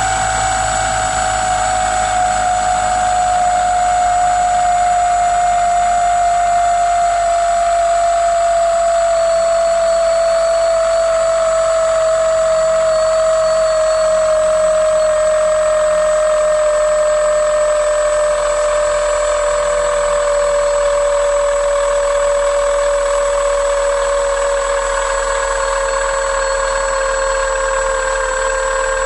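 Model-airplane glow engine running at high speed on the bench: a loud, steady, high-pitched drone whose pitch sinks slowly and evenly as the engine gradually slows.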